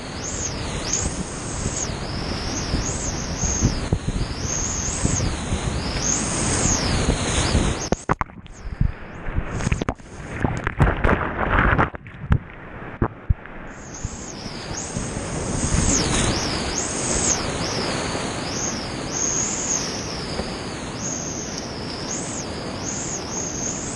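Rushing roar of a big whitewater rapid at high flow, with water crashing around a kayak. For several seconds about a third of the way in, the sound turns muffled, with a few sharp knocks, as the boat is buried in the waves.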